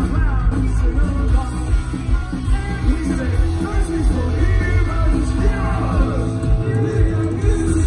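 Punk rock band playing live: distorted electric guitars, bass and drums with a regular beat, and a lead singer's voice over them.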